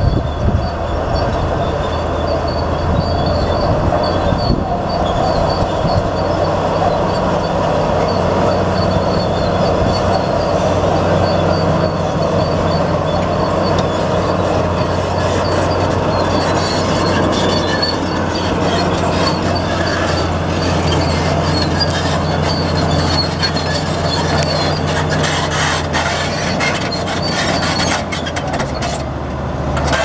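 Komatsu D65P crawler bulldozer's diesel engine running steadily under load, with the clatter and squeal of steel tracks and scraping rock as the blade pushes. Near the end the engine note steps down and sharp knocks of rock and track come through more often.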